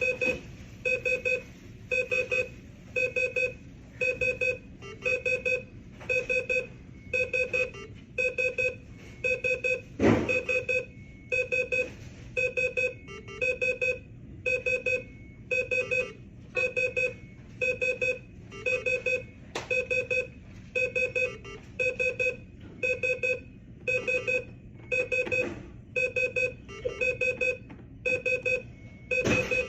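ICU bedside equipment alarms beeping over and over, about three beeps every two seconds, each beep a low and a high tone together, with a few short knocks in between. The beeping comes from the machines attached to intubated, sedated COVID patients, the 'different kind of noise' those patients now make.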